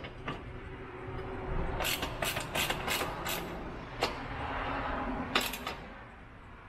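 Hand ratchet wrench clicking in short, irregular strokes as the bolts of a pipe-clamp bracket are tightened by hand.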